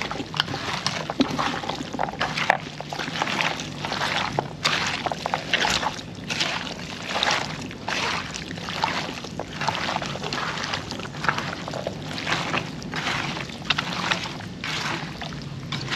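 Hands working wet seasoning into raw chicken pieces, squelching and sloshing in a steady rhythm of about one or two strokes a second.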